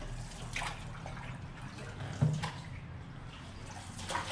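Canoe paddle strokes in stream water: a few splashes and drips as the paddle dips and lifts, over a steady wash of water.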